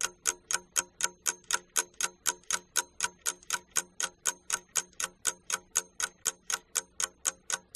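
Ticking-clock sound effect marking time for an exercise: evenly spaced sharp ticks, about four a second.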